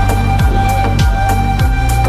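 Electronic background music with a steady kick-drum beat, each kick dropping in pitch, under a held synth note and light high percussion.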